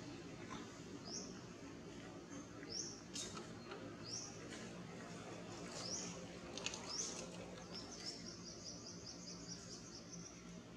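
A bird calling faintly: five short high chirps that rise in pitch, one every second or so, then a quick run of high notes over the last few seconds. A steady low background hum runs underneath.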